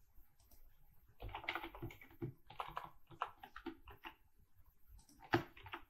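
Typing on a computer keyboard: a quick run of keystrokes begins about a second in, with one louder key strike near the end.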